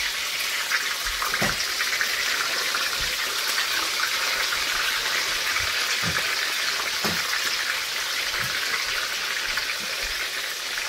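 Hot oil sizzling steadily in a frying pan as whole small fish fry.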